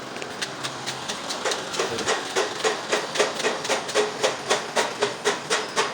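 Rapid, regular knocking, about four sharp strikes a second, growing louder after about two seconds in.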